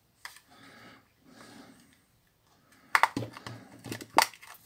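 Sharp plastic clicks and snaps of a Nokia 7500's back cover being pried at with a thin pick: a quick cluster about three seconds in, then one louder snap about a second later. The cover is stuck and does not come off.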